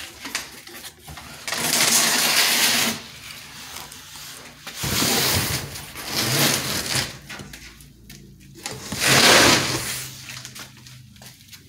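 Several bursts of rustling and scraping, each about a second long, with quieter shuffling between: things being handled and moved close by.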